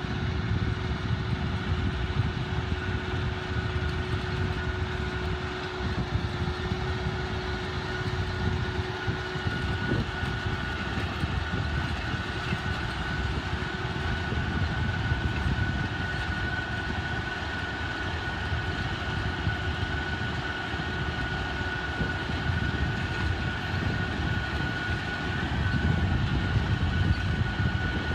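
Machinery running steadily, with a constant high whine over a rumbling din.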